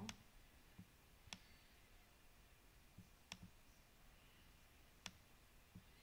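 Computer mouse clicking three times, about two seconds apart, with softer taps between, as chess moves are made on screen; otherwise near silence.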